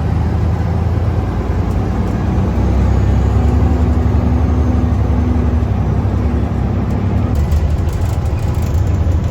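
Loaded grain truck driving down the road, heard from inside the cab: a steady, loud low engine drone with road noise.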